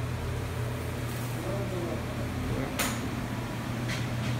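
A steady low machine hum runs throughout, with a sharp click just under 3 seconds in and a lighter one about a second later. A faint voice is heard briefly.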